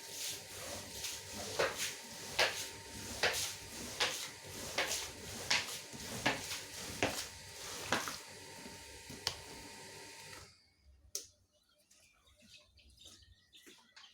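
Rotary floor polisher scrubbing a carpet: a steady machine noise with a swishing stroke about every second, stopping about ten seconds in and leaving only faint clicks.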